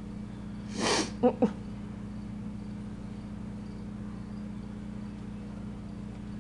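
A single short puff of breath blown near the microphone about a second in, followed by two quick sharp pitched clicks; a steady low hum runs underneath.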